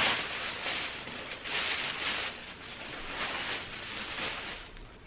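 Loose terrarium substrate being scooped out and dropped into a bag, which rustles in a string of uneven bursts that fade toward the end.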